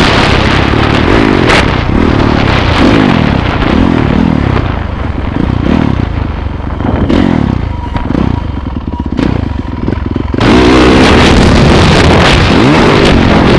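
Dirt bike engine being ridden, revving up and easing off again and again as the throttle is worked. It goes quieter through the middle, then runs loud again near the end.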